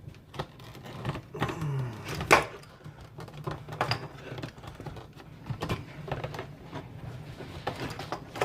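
Scattered clicks and knocks of plastic fuel pump and sending unit parts being handled and fitted, with one sharper knock about two seconds in, over a steady low hum.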